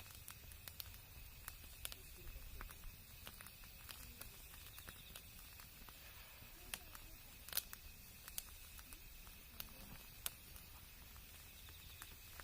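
Wood campfire crackling quietly, with sharp pops at irregular intervals, the loudest a little past halfway, over a faint steady high tone.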